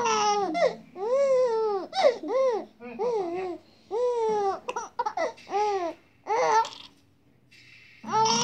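Baby babbling and cooing in a string of short, high, sing-song sounds, each rising and then falling in pitch, with a brief pause near the end. The sounds are happy and contented.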